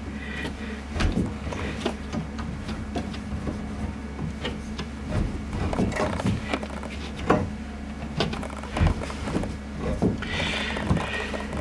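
Hand tube cutter being turned around a copper water pipe: irregular light clicks and scrapes as the cutter is rotated and tightened. A steady low hum runs underneath.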